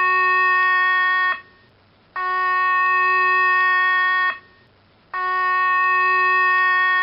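Electronic emergency-alert tone sounding in three long steady-pitched blasts, each about two seconds long, with a pause of just under a second between them.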